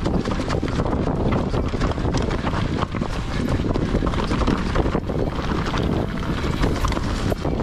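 Santa Cruz Megatower full-suspension mountain bike riding down a leaf-covered dirt trail: wind rushing over the microphone and tyres rolling over dry leaves and earth. Frequent short clicks and knocks come from the bike over bumps.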